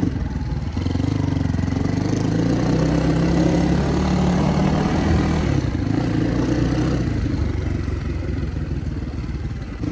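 Motorcycle engine running while riding, its note climbing gently for a few seconds and then falling off about halfway through, over a steady rushing noise.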